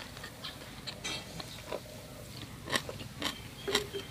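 A person chewing a mouthful of crispy fried pork belly with green papaya salad, with several sharp crunches in the second half.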